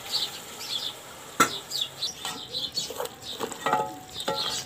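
Long wooden spoon stirring and knocking against a large aluminium pot of tripe curry: one sharp knock about a second and a half in, then a run of knocks with a brief metallic ring from the pot. Small birds chirp repeatedly throughout.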